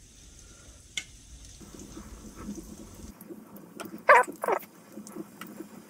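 Panko-crumbed chicken nuggets frying in shallow oil in a frying pan with a light, steady crackle, and a single click of metal tongs about a second in. About four seconds in come two short, loud voice-like sounds, the loudest thing here.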